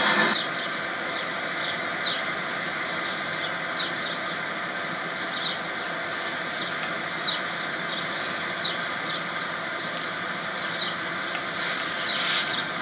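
Burlington Northern diesel locomotives idling in a rail yard: a steady engine hum, with short high chirps recurring every second or so. The louder noise of a passing freight train cuts off just after the start.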